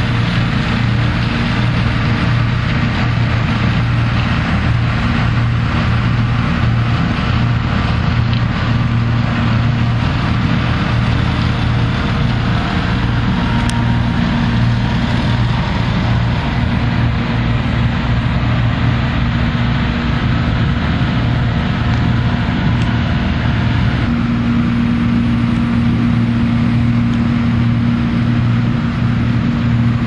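John Deere combine harvester's diesel engine and machinery running steadily: a loud, continuous low drone over a haze of mechanical noise. A higher hum grows stronger about two-thirds of the way through.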